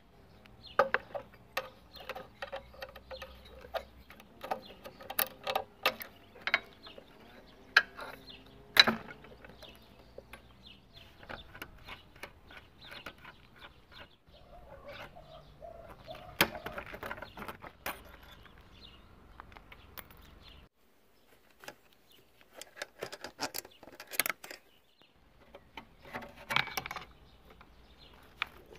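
Wrenches and hand tools clinking and knocking against the metal parts of a Honda Dio scooter engine being taken apart: scattered sharp metal clicks and taps, some in quick runs.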